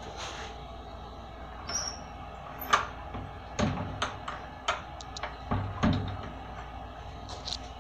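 An irregular string of sharp clicks and knocks, about a dozen in four seconds, the loudest about three seconds in, over a steady low hum.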